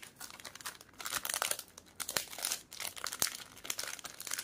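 Clear plastic jewellery pouches crinkling and rustling as hands handle them and pull one open, with a few sharp clicks among the crackle.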